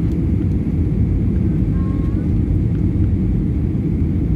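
Steady low rumble of an Airbus A320-family jet's engines and airflow, heard inside the passenger cabin during the landing approach.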